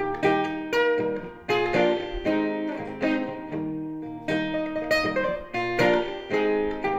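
Steel-string acoustic guitar played solo with a capo, chords struck in a steady rhythm, each ringing and fading before the next.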